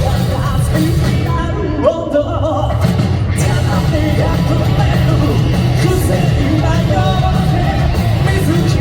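Live rock band playing loud through a concert PA, with a male lead singer over guitars, bass and drums. The band's full sound thins out briefly about two seconds in, then comes back in.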